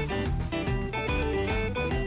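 Background music: plucked guitar notes over a steady beat and bass.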